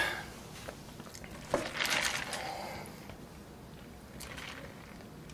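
Quiet eating-and-drinking sounds at a table: a click and a short soft noise about a second and a half in, then a faint sip of cola through a paper cup's straw a little after four seconds.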